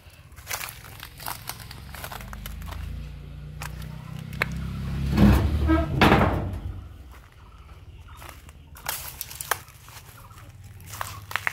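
Footsteps crunching and crackling over dry straw and bamboo litter. Midway a loud, wavering animal call lasting about a second rises over them.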